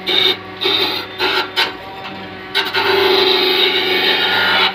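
Cylinder head facing machine skimming the deck face of a Honda four-cylinder aluminium head, the cutter scraping across the metal over a steady motor hum. The cutting noise comes in short broken bursts at first, then runs continuously from about halfway through.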